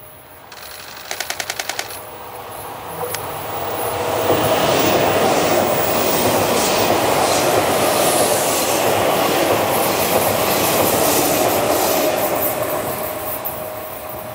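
Odakyu 7000 series LSE Romancecar electric train passing close by. Its wheel and running noise builds over the first few seconds, stays loud through the middle and fades toward the end. A short burst of rapid, even clicks comes about a second in.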